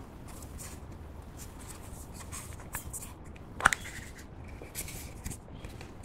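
Hands handling and rubbing a plastic heart-shaped blush compact, with a single sharp click a little past halfway as its lid snaps open.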